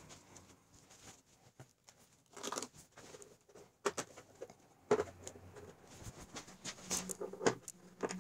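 Handling noises: faint rustling, then a few separate sharp clicks and knocks as hands work at the plastic top cover of a Honda HRN216 lawn mower to take it off.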